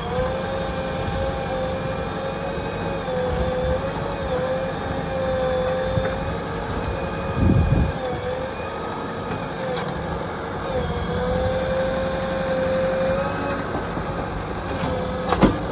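JCB 3DX backhoe loader's diesel engine running steadily at working revs, with a whine that wavers slightly in pitch. A heavy thump comes about halfway through and another just before the end.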